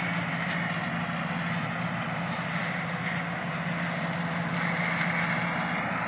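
New Holland TC57 combine harvester running steadily while harvesting soybeans: a constant engine hum that does not rise or fall.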